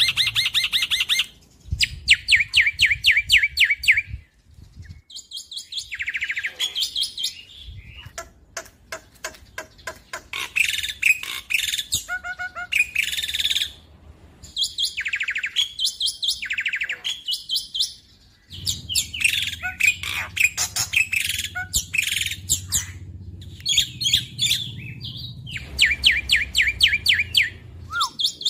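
Black-winged myna (jalak putih) singing loud, fast phrases of rapidly repeated chattering notes, one burst after another with short pauses between them.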